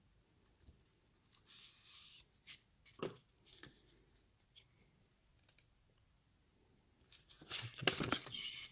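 Cardboard and paper being handled: a brief sliding rustle about a second and a half in, a light knock around three seconds, then louder crackly rustling of paper leaflets near the end.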